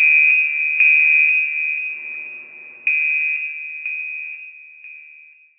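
Electronic alert tone: a single high pure tone sounded again and again at uneven intervals of one to two seconds. Each strike fades away, and the whole grows quieter until it dies out near the end.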